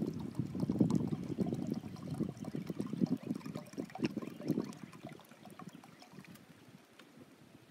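Water pouring from a cloth-covered canteen into a tin cup, trailing off about five seconds in.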